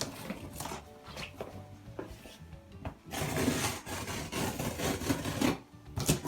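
A cardboard shipping box being opened and handled: irregular scraping and rubbing of cardboard with a few sharp clicks, and a longer stretch of scraping about halfway through.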